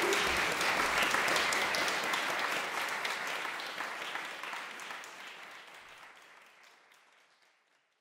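Audience applauding. The applause fades away steadily from about three seconds in until it is gone near the end.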